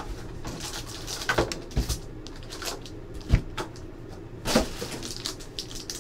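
Foil trading-card packs being handled: crinkling wrappers and several light knocks and taps, spaced irregularly, as packs are moved and set down on the table.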